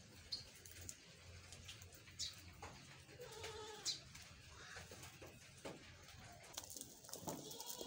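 Chickens in a coop: faint short chirps and soft calls from the hens, then a rooster starting a long, drawn-out crow near the end.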